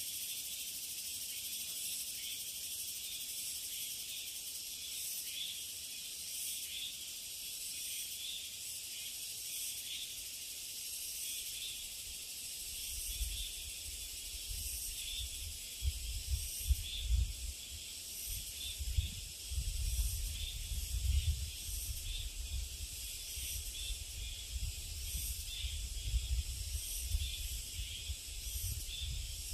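A steady, high-pitched summer insect chorus buzzes on without a break. About halfway through, gusts of wind start buffeting the microphone with a low rumble.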